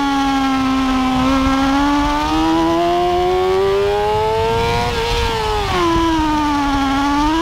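Sport motorcycle engine running at high revs while lapping a track: the pitch sags, then climbs steadily for a few seconds, falls back around six seconds in and begins to rise again near the end.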